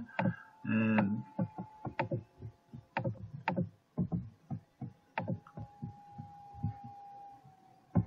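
Irregular clicks and light knocks from a computer mouse being clicked and handled close to the microphone, over a faint steady hum that fades near the end.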